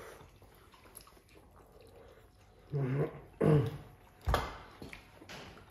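Two short, low, hum-like vocal sounds about half a second apart, a few seconds in, then a single dull knock.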